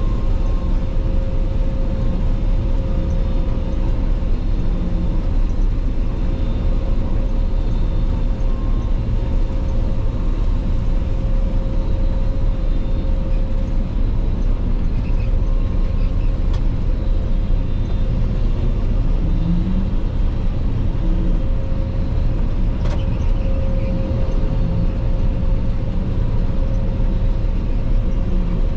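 Claas Lexion 480 combine harvester running steadily while harvesting rapeseed: a constant low drone with a steady whine over it.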